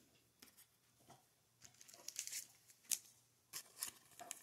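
Faint rustling and crackling of a trading card being slid into a thin plastic card sleeve, with light ticks of handling, mostly from about two seconds in and again near the end.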